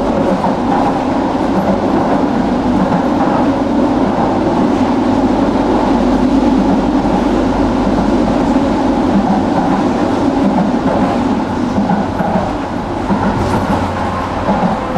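Tram running along the track: a steady rumble of steel wheels on rails and the running gear, dropping slightly in level near the end.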